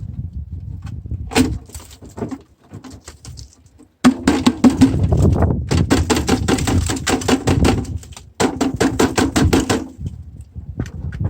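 A rusty old microwave being tipped up and shaken over a steel bin, its metal casing rattling and clanging fast as loose rust falls out. It starts with a few knocks, then rattles hard from about four seconds in, with one brief pause. A low wind rumble runs underneath.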